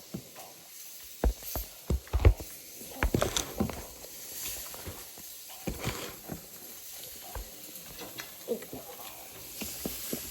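Irregular light clicks and knocks, several close together in the first few seconds, over a faint steady hiss.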